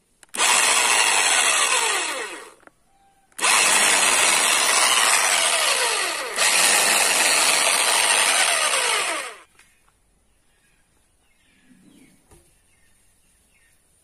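Electric chainsaw run with no wood in the cut, its motor and chain spinning up when the trigger is pulled: a burst of about two seconds, a short stop, then a longer run of about six seconds that briefly dips midway and cuts off about nine and a half seconds in.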